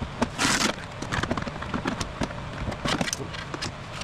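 Electric drill boring out a steel rivet holding the window regulator inside a car door, the motor running steadily while the bit chatters and clicks against the metal.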